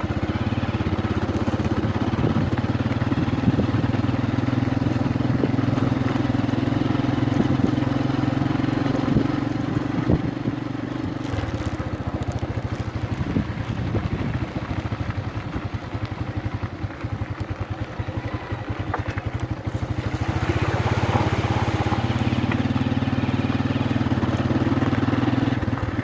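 Motorcycle engine running as the bike rides over a loose gravel riverbed, heard from the rider's seat. The engine note drops back for several seconds midway, amid many small knocks from the bike jolting over the stones, and picks up again about two-thirds of the way in.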